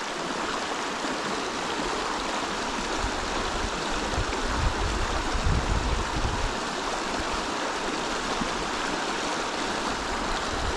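Mountain stream running: a steady rush of flowing water, with a low rumble about three to six seconds in.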